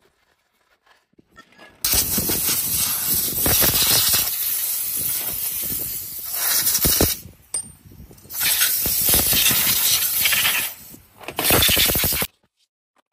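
Hissing high-pressure spray in three long bursts, each cutting off sharply, as when parts are blasted clean.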